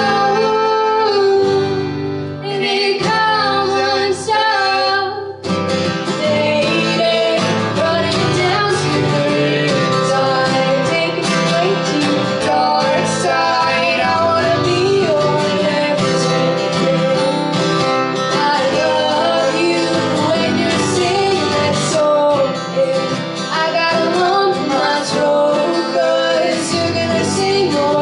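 Live acoustic band: two strummed acoustic guitars and a ukulele accompanying male and female voices singing, with a brief dip about five seconds in before the band comes back fuller.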